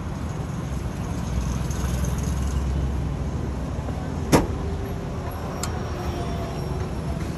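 Steady low rumble of street traffic, with a sharp knock about four seconds in and a lighter click a second later.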